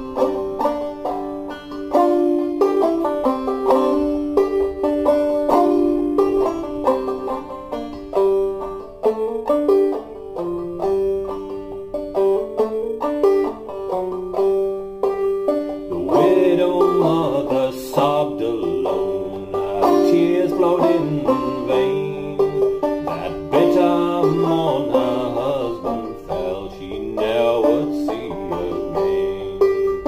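Banjo played clawhammer style in sawmill tuning: an instrumental break of the ballad's tune, a steady run of picked and brushed notes with no singing.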